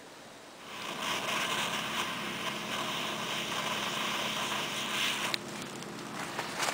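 Butane torch lighter hissing steadily as its flame is held on a pot of copper oxide thermite. The hiss cuts off suddenly about five seconds in with a sharp pop, and a few sharp crackles follow as the thermite burns.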